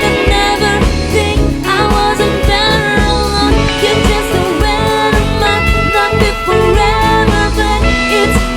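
A live band playing a pop song, with drums, bass, keyboard and guitar keeping a steady beat.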